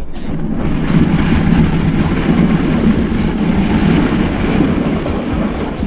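A car spinning its wheels on loose gravel with the engine revving: a loud, crackling rush of tyres and sprayed stones that starts suddenly and eases off near the end.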